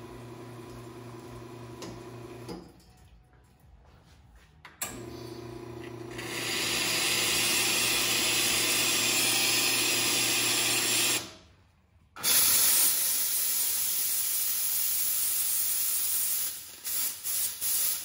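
La Marzocco FB80 espresso machine's pump hums steadily while both groups pour shots, then stops. After a pause, steam is released in two loud, steady hissing blasts with a short break between them, the second breaking into sputters near the end.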